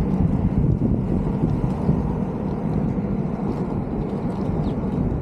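Inline skate wheels rolling over rough asphalt in a steady rumble, with wind buffeting the microphone, as the skater carves S turns downhill.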